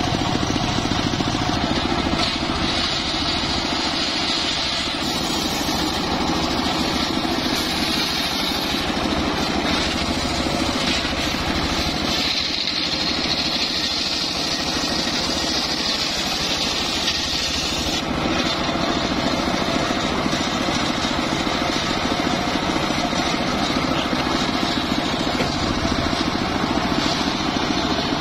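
Engine-driven homemade circular saw bench running steadily, its large blade ripping lengthwise through a teak log with a high whine over the engine. The high cutting sound drops back about eighteen seconds in and picks up again near the end.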